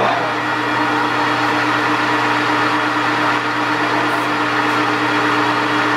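Kingston HJ-1700 geared-head metal lathe switched on with its spindle lever, running with the 3-jaw chuck spinning at probably about 650 RPM. It gives a steady motor and gearbox hum with a steady tone.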